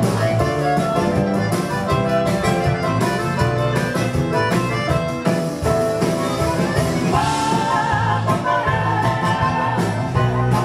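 Live band playing an instrumental break: clarinet over bayan, acoustic guitar, bass guitar and drums.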